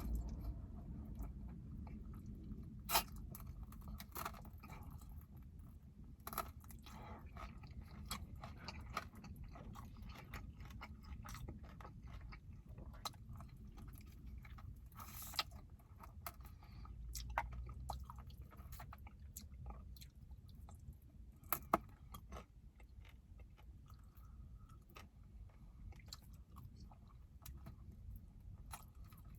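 Close-up chewing and biting of sticky fried chicken wings, with scattered sharp crunches and wet clicks over a low steady rumble.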